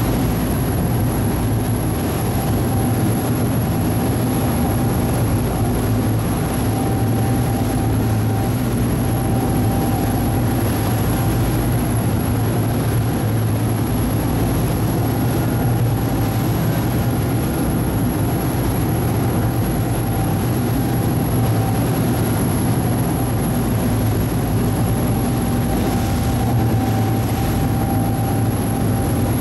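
Passenger boat's engine running steadily, heard on board: a low, even drone with a faint steady whine above it.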